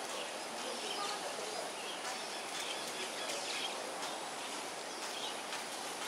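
Steady outdoor ambient hiss with faint bird chirps scattered through it.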